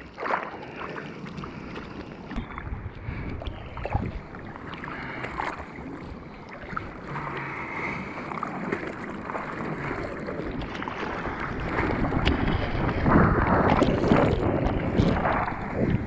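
Sea water sloshing and splashing against a bodyboard-mounted camera at water level. It grows louder and rougher in the last few seconds as the board rides up the face of a wave.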